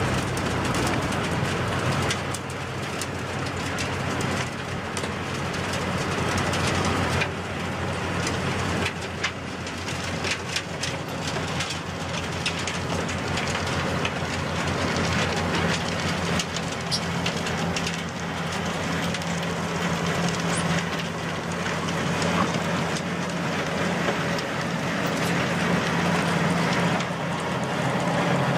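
A machine's engine running steadily with a fast, even chugging.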